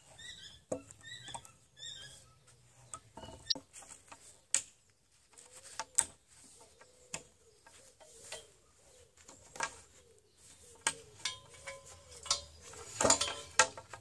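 Irregular metallic clinks and knocks of a hand nail puller and loose wire against a wooden beam, with a cluster of sharper knocks near the end. Birds chirp during the first couple of seconds.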